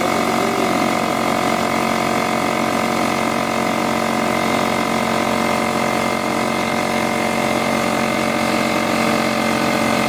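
Porter-Cable oil-free pancake air compressor running steadily as it pumps up its tank. Its motor and pump make a constant loud drone with several steady tones. It is slow to build pressure: taking a long time to pump up.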